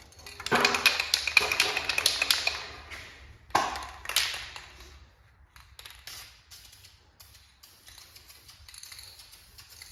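Sheet metal of a car body being worked: a fast, irregular run of metallic clicks and taps lasting about two seconds, two sharper knocks a little later, then scattered light ticks.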